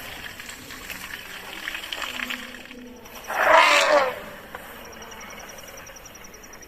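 An elephant trumpeting: one loud call about three seconds in, falling in pitch and lasting under a second, after a stretch of quieter, rougher animal noise.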